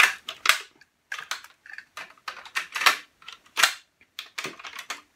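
Cassette handled in a Pioneer CT-W205R double cassette deck: an irregular run of sharp plastic clicks and clacks from the cassette, its door and the transport buttons, stopping just before the end.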